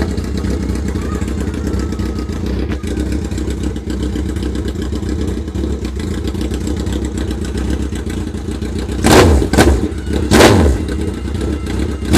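2003 Kawasaki Z1000's inline-four engine idling through aftermarket DanMoto XG1 exhaust pipes, then revved in three short throttle blips about three-quarters of the way through, each rising and falling in pitch.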